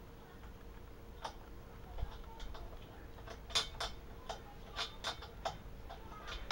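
A wrench clicking against metal as a nut on an air compressor's pressure regulator fitting is worked loose, about a dozen sharp, uneven clicks.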